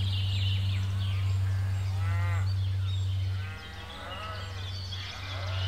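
Farm sound effects: cattle mooing low and long, with higher chirping calls over it.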